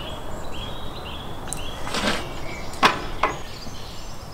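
Small birds chirping in short repeated high calls over steady outdoor background noise, with three brief scuffing or knocking sounds about two to three seconds in, the middle one the loudest.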